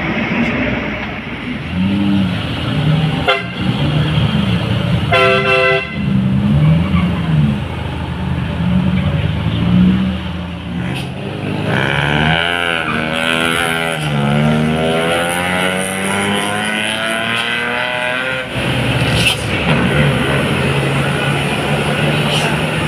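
Engines of trucks, cars and motorbikes running as they climb a steep hairpin bend, with a short vehicle horn blast about five seconds in. From about twelve to eighteen seconds a long wavering tone rises and falls over the engine noise.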